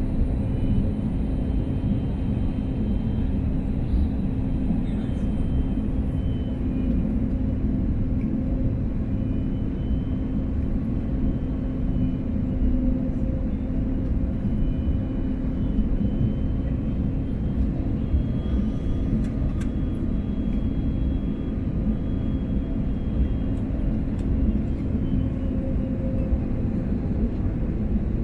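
Steady cabin noise inside an Airbus A320neo airliner: an even low rumble of engines and airflow with a constant hum, holding level throughout.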